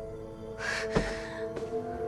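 Soft, sustained background music score holding steady tones, with a short breathy noise about half a second in and a faint click near the middle.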